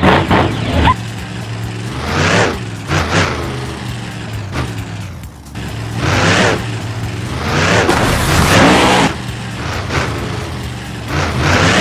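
Cartoon monster truck engine sound effects, revving in several swells that rise and fall, over background music.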